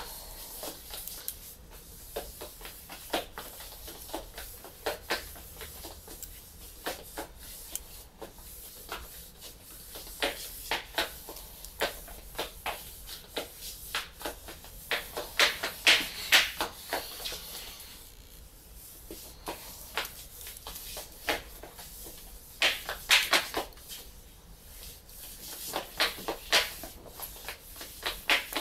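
Small clicks and rattles of the Sony DSC-QX10 lens unit and its plastic parts being handled during disassembly. They come irregularly, with denser, louder flurries around the middle and again near the end.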